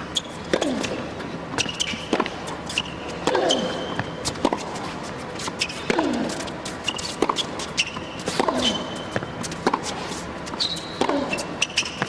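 Tennis rally on an indoor hard court: racket strikes and ball bounces trading back and forth, with shoe squeaks on the court surface. A player's grunt, falling in pitch, comes with every other shot, about every two and a half seconds.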